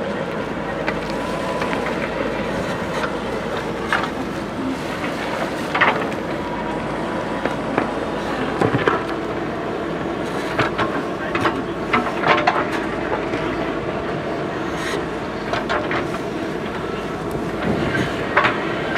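JCB backhoe loader's diesel engine running steadily, with frequent short clanks and knocks, heaviest around six, nine and twelve seconds in.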